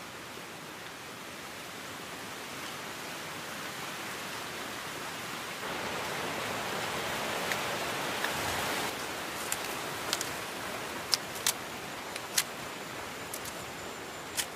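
Steady outdoor rustling hiss that grows louder around the middle, with a scattering of short, sharp clicks and snaps in the second half as green bananas are peeled by hand with a knife over a pot of water.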